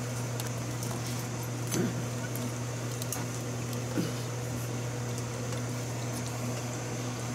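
Steady low electrical hum with a faint high whine, and a few soft knocks and clicks of things being handled as a digital meat thermometer is picked up.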